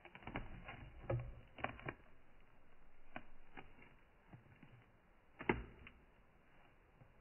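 Faint scattered clicks and light knocks of handling around a plastic tarantula enclosure as metal feeding tongs are pulled back, the sharpest about a second in and about five and a half seconds in.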